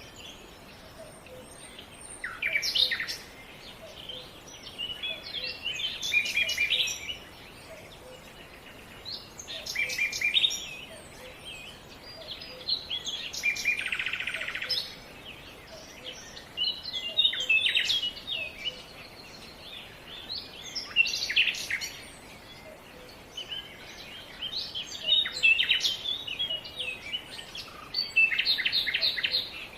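Songbirds singing: short phrases of quick chirps and trills come every few seconds, with more than one bird calling.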